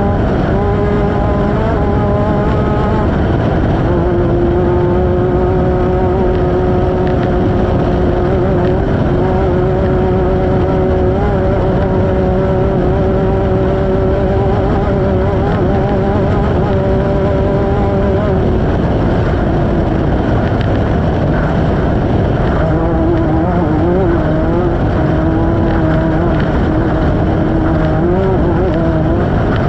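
Off-road race vehicle's engine running hard at a fairly steady speed, heard onboard under a loud, constant rush of noise. About two-thirds of the way through the pitch drops, then wavers up and down as the throttle comes and goes.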